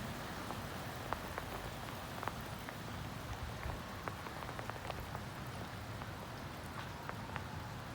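Heavy rain from a thunderstorm, falling steadily, with scattered sharp ticks of individual drops striking a nearby surface.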